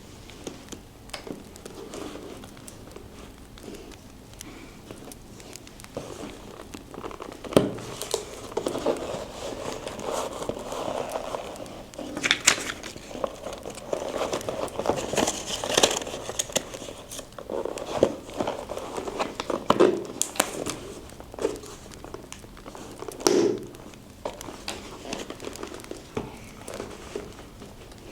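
Paper rustling and crinkling as it is handled, with many small crackles and taps throughout, and busier rustling through the middle.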